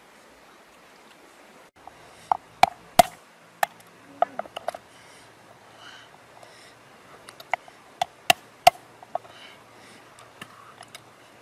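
Cooked crab leg shells cracking and snapping as they are broken open by hand: about a dozen sharp cracks, a cluster a couple of seconds in and another a few seconds later.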